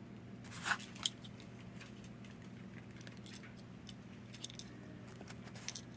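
Faint clicks and handling noise as small snips are worked in around a diecast toy car's wheel axle, with a sharper click about a second in, over a steady low hum.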